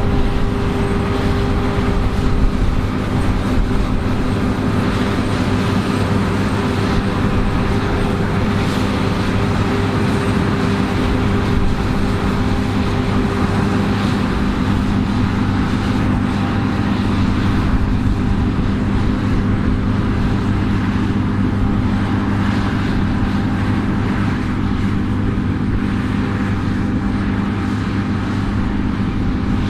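Combine harvester running steadily in a wheat field, a continuous engine drone with a steady hum; one higher hum fades out about halfway through.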